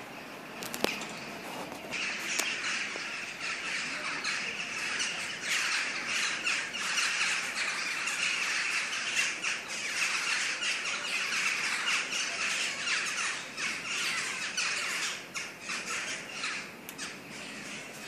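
A large flock of birds calling overhead, many short calls overlapping in a continuous clamour. It swells about two seconds in and thins out near the end.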